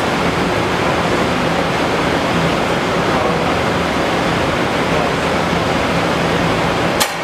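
Steady rushing fan noise with a faint low hum, broken by one sharp click near the end.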